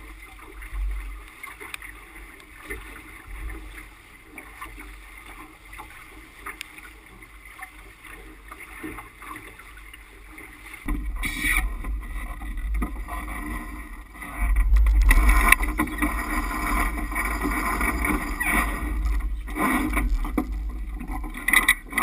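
Water rushing along a sailboat's hull and wind buffeting the microphone while the boat sails. The sound grows louder about eleven seconds in and louder again a few seconds later.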